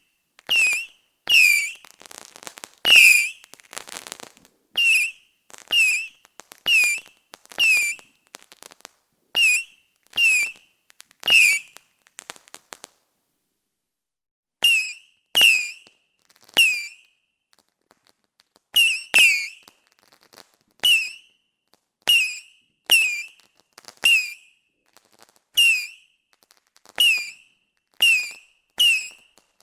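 Fireworks going off in a steady series, roughly one a second. Each is a sharp crack with a brief, high, slightly falling whistle. There is a short crackle early on and a pause of about two seconds partway through.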